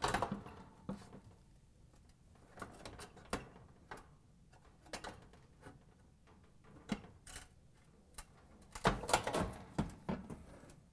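Light clicks and knocks of a cooktop's metal hinge being worked into a range's sheet-metal side mounting bracket, with a sharper knock at the start and a busier run of knocks about nine seconds in.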